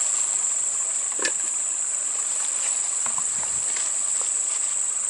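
Steady high-pitched drone of insects in swampy vegetation, one unbroken shrill tone with a few faint ticks.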